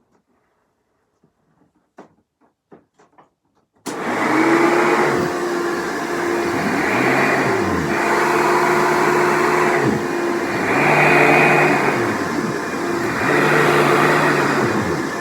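A few light clicks, then about four seconds in a Hoover Dimension Supreme upright vacuum is switched on and runs loud. Its motor pitch and level swell and drop about every two seconds. The owner says it definitely needs a new belt.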